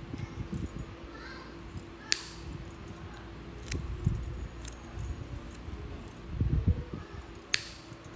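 Nail nippers snipping through a thick, crumbling toenail: sharp crisp clicks, the two loudest about two seconds in and near the end, with a few smaller snaps between and low rubbing from gloved hands holding the toe.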